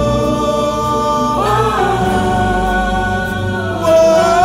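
Male voice singing long held notes in a Catholic worship song, the pitch swooping between notes about a second and a half in and again near the end.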